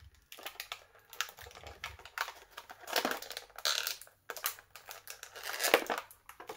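Clear plastic packaging crinkling and crackling in the hands, with small clicks, as the accessory parts are worked out of it.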